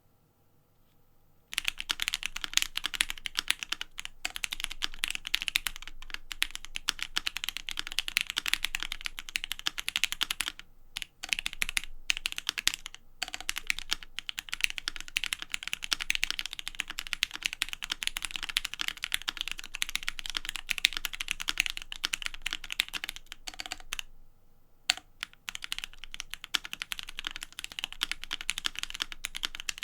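Typing on a Savage65 65% mechanical keyboard with Gateron Ink Black linear switches and GMK Rudy ABS doubleshot keycaps, on a deskmat: a dense, fast run of keystroke clacks. It starts about a second and a half in, breaks off briefly twice, pauses for about a second near the end, then carries on.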